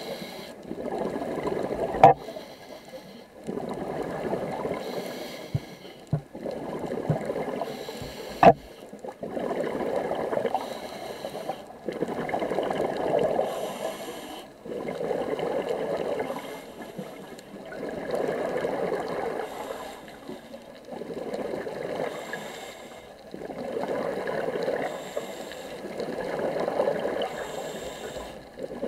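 Scuba regulator breathing underwater: a rushing burst of exhaled bubbles every two to three seconds, with quieter gaps between breaths. Two sharp knocks stand out, about two seconds in and about eight seconds in.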